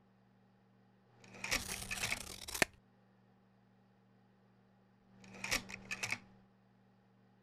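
Two bursts of rustling, crackling noise with sharp clicks: the first lasts about a second and a half, the second about a second, near the end. Beneath them runs a faint steady electrical hum.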